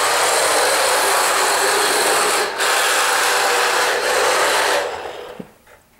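Radio-controlled car spinning doughnuts, its tyres scrubbing with a harsh rasp on a hard surface. The noise comes in two long runs, broken by a brief break about two and a half seconds in, and fades away near the end.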